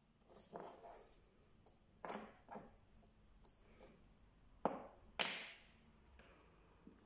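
Stainless steel dent repair rods and screw-on metal tips clinking and tapping as they are handled on a table: a series of light knocks, with the two loudest close together a little past the middle, the second ringing briefly.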